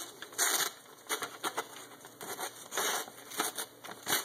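A sharp knife slicing through a paper advertising flyer in several short, hissing cuts, testing how keen the edge is.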